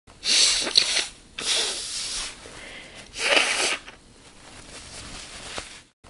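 A woman blowing her nose hard into a paper tissue. There are three forceful blows in the first four seconds, followed by fainter nasal noise.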